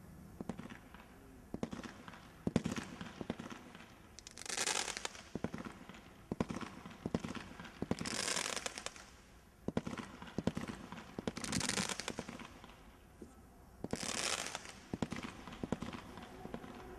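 Brothers Pyrotechnics Hitman, a 16-shot Category 2 combination roman candle barrage, firing a string of sharp shots. About every three seconds there is a burst of crackling from the effects lasting about a second.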